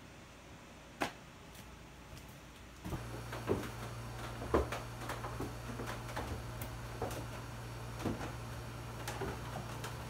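Footsteps coming down wooden stairs: a series of irregular knocks and creaks, over a steady low hum that starts about three seconds in. A single sharp click comes about a second in.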